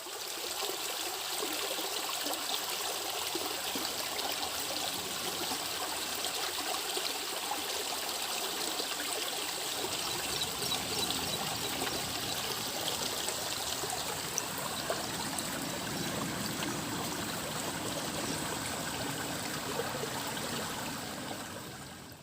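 River water flowing and trickling: a steady, even rush of running water that fades in at the start and fades out near the end.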